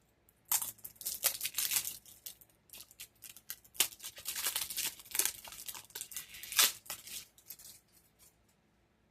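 A small cardboard box being torn open by hand: bursts of ripping and crinkling that stop about a second before the end.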